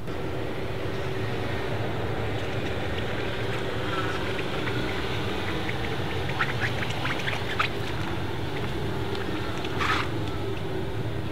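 Rolls-Royce Boat Tail rolling slowly over cobblestones: a steady low rumble of tyres on stone and a quiet engine. A cluster of light clicks comes about six to seven and a half seconds in, and a short harsh burst comes near the end.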